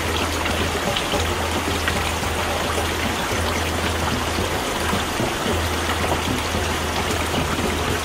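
Water flowing in a stream, an even rushing with a low hum underneath that drops out now and then.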